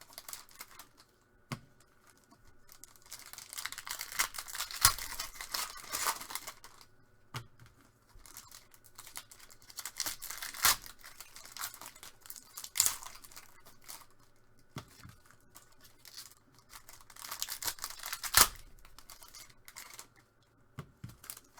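Foil trading-card pack wrappers being torn open and crinkled by hand, in irregular bursts of tearing and rustling with a few sharp snaps.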